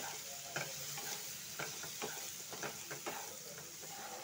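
Wooden spatula stirring and scraping a frying onion-tomato masala, freshly dusted with ground spices, in a non-stick kadai over a steady sizzle. The spatula's strokes scrape and knock against the pan about twice a second.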